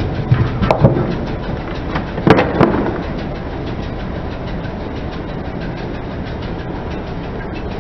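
Car tyre rolling over a small cardboard box and crushing it: a few sharp cracks and crunches in the first three seconds, then a steady rumble of the car rolling on.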